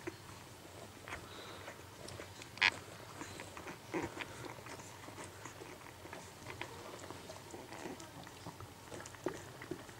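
Newborn puppies suckling at their mother, making irregular wet sucking and smacking clicks. One sharper, louder sound stands out a few seconds in.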